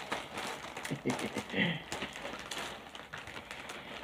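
A mail package being opened by hand: its packaging rustles, with irregular sharp crackles throughout.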